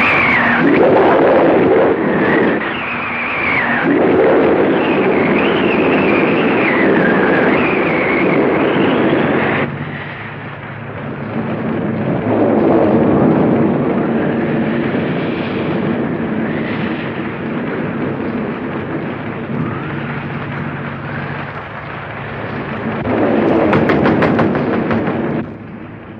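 Dramatic film background music rising and falling in loud swells, mixed with the rumble of thunder from a storm.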